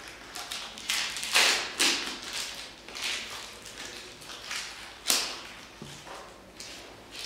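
A toothbrush and gloved hands on plastic wrap: a few short scratchy brush strokes, then scattered knocks and rustles, with one sharp scrape about five seconds in.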